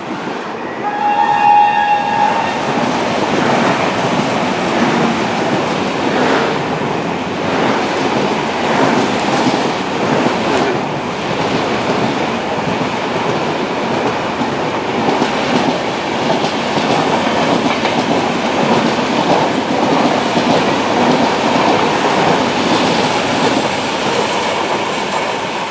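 An electric locomotive's horn sounds briefly about a second in, then the Rajdhani Express's coaches run past in a loud, steady rush, wheels clattering over the rail joints.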